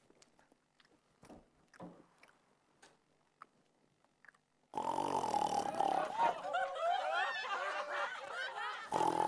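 Faint clicks, then about halfway a man's loud snoring begins abruptly: a long, noisy snore with a steady whistling tone running through it.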